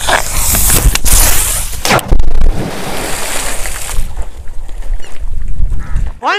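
Bottle of liquid nitrogen bursting underwater in a water-filled pit: sharp knocks about one and two seconds in, then a sudden, very loud blast. Water churns and sloshes after it with a rushing noise that dies down after about four seconds.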